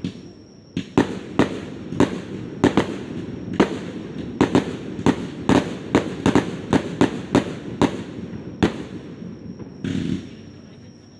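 Fireworks shells bursting in a quick, uneven string of about two dozen sharp bangs, roughly three a second, then one last burst near the end.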